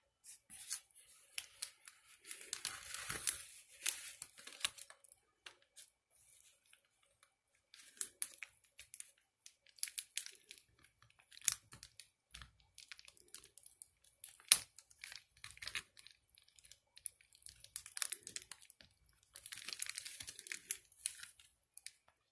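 Hands handling a plastic BBQ lighter and its parts: crinkling and rustling with many sharp plastic clicks and taps, in two longer rustling spells separated by scattered clicks.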